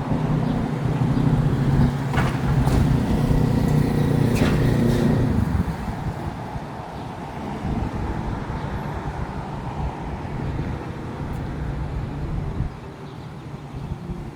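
Street traffic: a motor vehicle's engine running close by, loud with a steady low hum for about the first five seconds, then falling away into a general traffic hum. A few sharp clicks or knocks come near the start.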